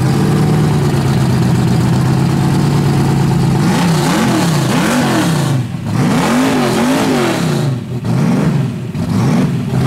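A 421 cubic inch small-block V8 with 13-to-1 compression idles steadily, then from about four seconds in is revved in quick blips, about once a second, the pitch climbing and falling back each time.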